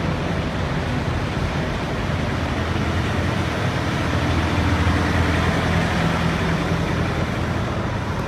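Diesel semi-truck engine running steadily with a low hum, mixed with road noise, getting a little louder around the middle.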